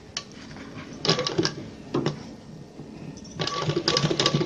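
Sewing machine stitching: a couple of short runs of fast needle clatter, then a longer, steady run from about three and a half seconds in with the motor's whine under it.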